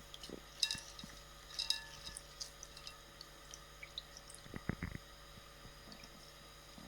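Lime juice dripping and splashing into a bowl of tomato water as limes are squeezed by hand: a few faint separate drips, then a short cluster of soft knocks a little after the middle.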